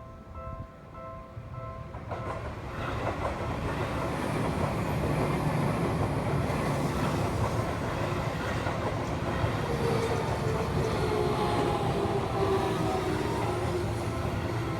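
Japanese level-crossing warning bell dinging in quick repeated strokes, stopping about two seconds in as a Seibu electric train arrives and runs over the crossing, wheels clattering on the rails. Near the end a whine from the train falls in pitch.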